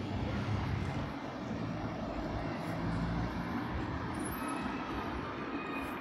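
City street traffic: steady road noise with a motor vehicle's low engine hum, which eases off a little past halfway.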